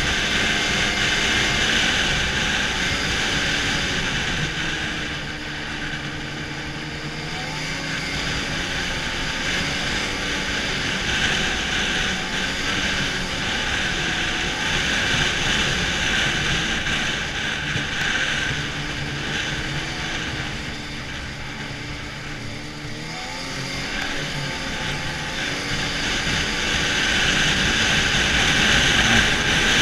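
Arctic Cat snowmobile running along a trail under steady throttle, over a constant hiss. The engine note drops and climbs back twice, around five and twenty seconds in, as the throttle eases off and opens again.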